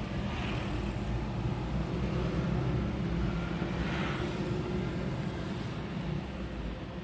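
Steady low rumble of a motor vehicle, with a faint hiss above it.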